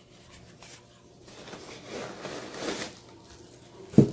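Rustling and rubbing of packaging being handled from about a second in, then a single sharp thump near the end, like an object set down on a table.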